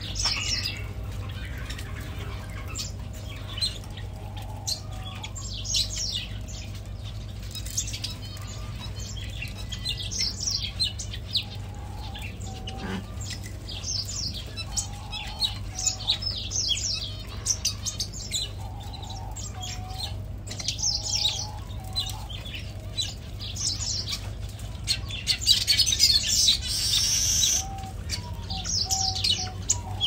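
Many small aviary songbirds chirping and twittering continuously in overlapping short calls, with some lower short calls recurring and a louder, denser burst near the end. A steady low hum runs underneath.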